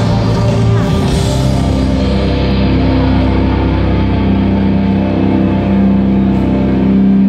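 Live rock band with guitars, bass and drums playing loud and steady through a large PA system, heard from the crowd in a big reverberant hall.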